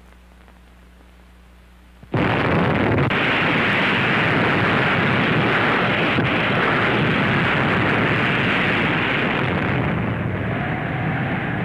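Atomic bomb explosion on the soundtrack: after a faint steady hum, a sudden loud blast about two seconds in that carries on as a continuous, loud noise, easing slightly near the end.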